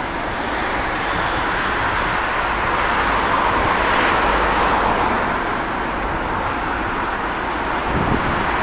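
Boeing 747-400 on final approach with landing gear down, its four turbofan engines giving a steady rushing roar that swells a little as the jet comes closer.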